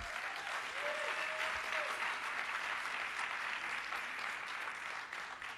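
Audience applauding, a steady sustained clapping that fades out near the end.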